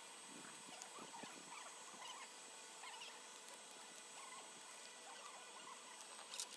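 Faint, irregular sizzling and crackling of pork skin and fat grilling on a wire grate over charcoal, with a brief click near the end.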